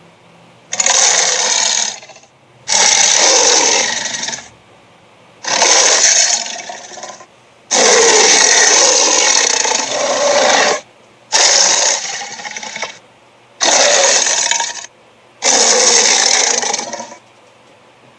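A string of seven harsh, noisy cartoon sound-effect clips, each one to three seconds long, that start and stop abruptly with short gaps between them.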